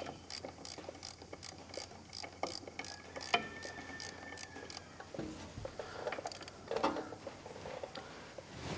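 Ratchet with a 9/16 socket clicking steadily, about five quick clicks a second, as a mounting bolt is wound out of the tractor's power-steering pump. Over the last few seconds there are a few scattered light metal knocks.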